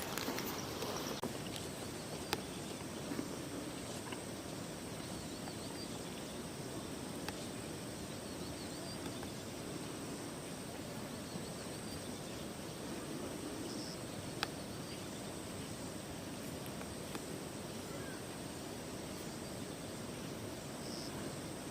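Forest ambience: a steady even hiss with an insect's high, unbroken buzz over it and faint bird chirps now and then. Two sharp clicks stand out, one about two seconds in and one in the middle.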